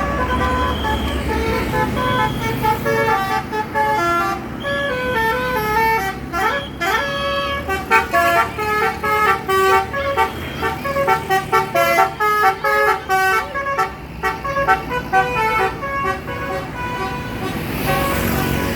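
Bus 'telolet basuri' musical air horn playing a fast melody of short, stepped horn notes, several per second, over the bus's idling engine.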